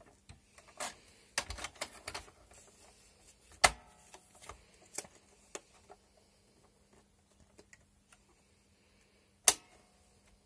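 Plastic clicks and knocks from a roll of labels being loaded into an open Honeywell PC42D label printer, the roll and its holder being seated and the media guides set. The clicks are scattered, with two sharp, loud snaps, one about three and a half seconds in and one near the end.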